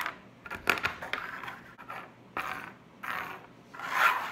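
Small plastic mini football helmets being handled on a tabletop: a few light clicks under a second in, then short scraping rubs, the loudest near the end.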